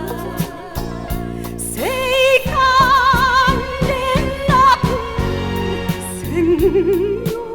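Instrumental break of an enka song: band backing with a steady drum beat and a melody line that slides up about two seconds in and holds long notes with vibrato.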